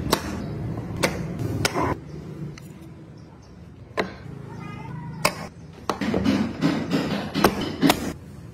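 Wooden parts of a handmade wooden model car clicking and knocking together as the carved doors are fitted and pressed shut by hand: a series of sharp wooden clicks, a few in the first half and several in quick succession in the second half.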